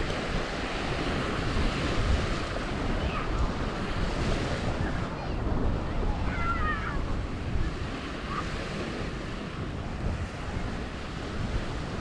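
Surf washing onto a sandy beach in a steady wash of noise, with wind rumbling on the microphone.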